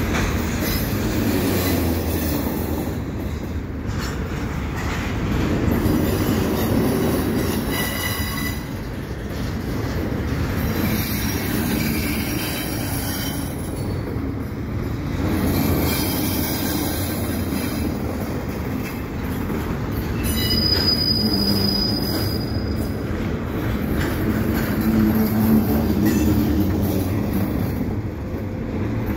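Double-stack intermodal container well cars rolling slowly past on yard track, with a steady rumble of steel wheels on rail that swells and fades. A high, thin wheel squeal sounds for about two seconds about two-thirds of the way through.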